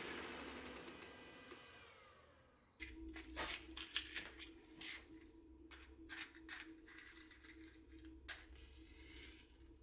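Belt grinder spinning down after being switched off: its whirr fades and falls in pitch over about three seconds. Then a series of small clicks and taps from hands handling things, over a faint low steady hum.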